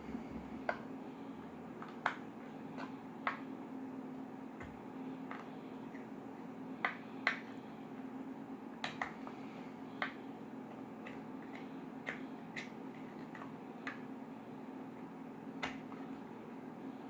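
Slime being squeezed and poked, giving irregular sharp clicks and pops, over a steady low hum.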